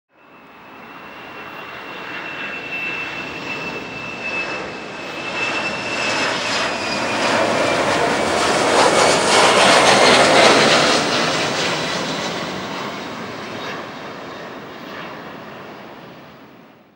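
Boeing 737-400 freighter's CFM56-3 turbofans on final approach, passing by. A high fan whine slides slowly down in pitch as the jet goes past. The noise swells to its loudest about ten seconds in, then fades away.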